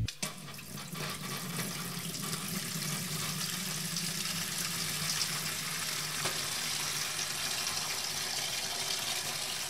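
Steady rushing hiss, like running water, with a low hum underneath, swelling slightly over the first few seconds. This is the noise intro of an alternative rock track, heard before the band comes in.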